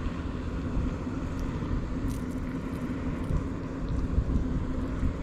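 A steady low outdoor rumble, uneven from moment to moment, with a few faint clicks over it.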